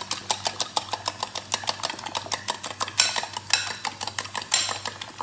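A spoon beating eggs in a bowl, clicking quickly and steadily against the bowl's side, several strokes a second, with a couple of longer, louder scraping strokes about three and four and a half seconds in.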